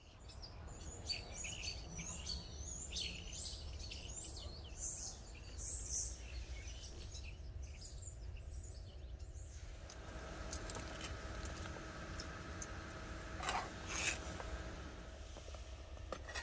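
Small birds chirping in quick, repeated high calls for about the first half. Then a faint steady hum, with a few light clinks near the end.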